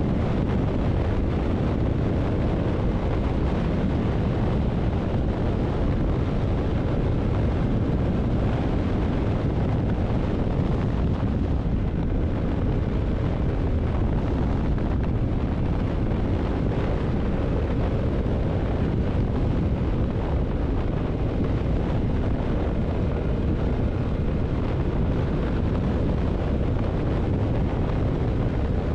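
Steady wind rush on the microphone of a Yamaha MT-07 motorcycle cruising at an even speed, with the bike's engine and tyre noise underneath.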